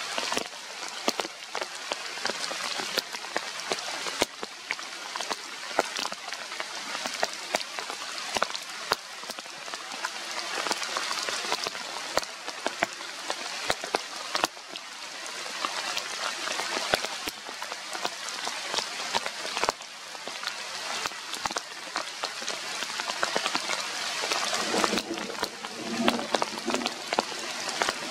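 Steady rain falling through tree foliage, a continuous hiss dotted with many sharp ticks of drops striking leaves and branches.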